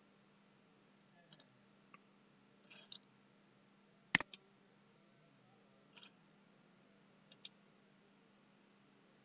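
Computer mouse clicking: scattered single and double clicks, the loudest a sharp click about four seconds in, over a faint steady hum.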